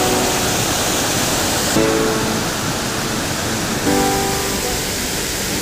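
Steady rush of a mountain creek cascade and waterfall, with instrumental background music laid over it: a soft chord struck about every two seconds.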